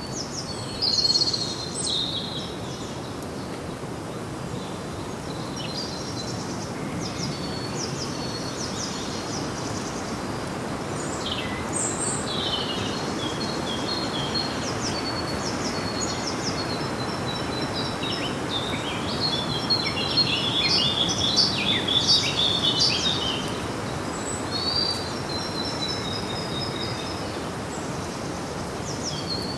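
Several small birds chirping and singing in short calls and trills, busiest in the middle, over a steady background hiss.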